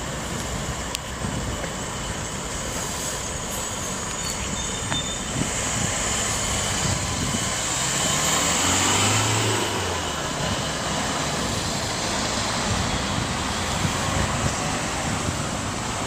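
Steady street traffic noise from cars and vans on the road, with one vehicle passing close, at its loudest about eight or nine seconds in.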